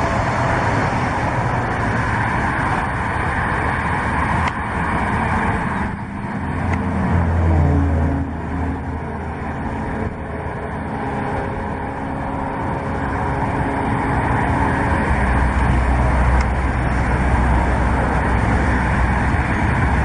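A motor vehicle engine running with a steady rumbling noise. Its pitch slides down and back up in places, and the low rumble swells about halfway through.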